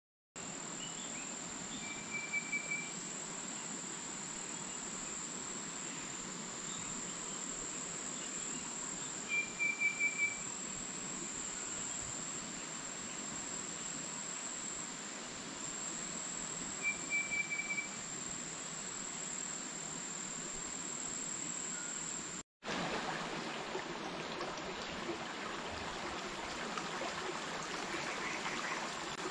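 Forest ambience: a steady high-pitched insect drone, with a bird giving a short burst of rapid notes three times, about seven seconds apart. Some three-quarters of the way through it cuts to the even rush of a stream.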